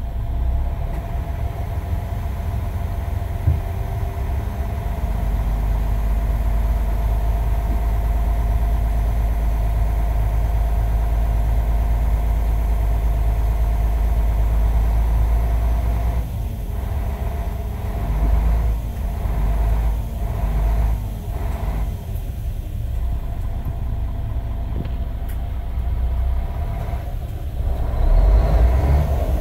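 Mercedes-Benz Tourismo coach's OM457hLA inline-six diesel engine revved in neutral with no load. It is held at raised revs for several seconds, then blipped up and down about once a second for a few seconds, and rises again near the end.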